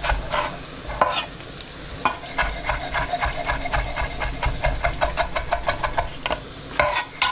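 Smoked bacon and garlic sizzling in a frying pan while being stirred briskly: a quick run of scraping, knocking strokes, about five a second, densest through the middle.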